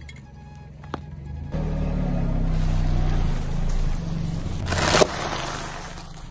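A car tyre rolls slowly over asphalt, a low rumble from about a second and a half in. About five seconds in there is one short, loud crunch as something is crushed under the wheel.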